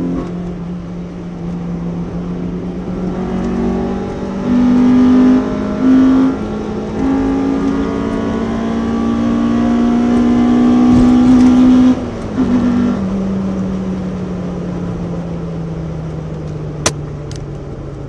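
Honda B18C 1.8-litre DOHC VTEC four-cylinder in a Civic, heard from inside the cabin at speed. The engine pulls hard, its pitch climbing with a few brief breaks in the note, then drops away suddenly about twelve seconds in and sinks slowly as the car eases off. There is a single sharp click near the end.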